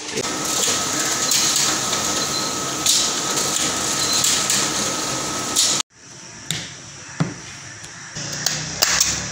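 Large office photocopier-printer running as it prints pages: a steady mechanical whirr with a thin steady whine. It cuts off abruptly about six seconds in, leaving a quieter room with a few light clicks.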